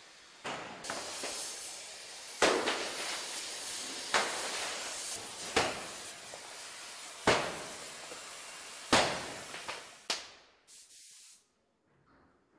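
Metal being cut apart on a renovation site, throwing sparks: a steady hiss broken by loud metal bangs about every one and a half seconds. It stops about ten seconds in.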